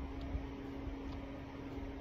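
Steady low appliance hum with faint low thuds and rustling from knee push-ups on a wooden floor, one sharper thud about a third of a second in.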